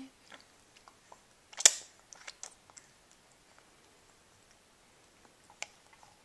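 A few clicks and wet smacks from a baby eating off a plastic-tipped spoon, with one sharp click about a second and a half in and another near the end.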